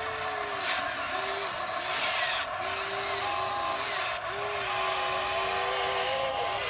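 Electric motors of a radio-controlled model excavator whining in short runs that start and stop, the pitch shifting a little as different functions of the arm and bucket are worked.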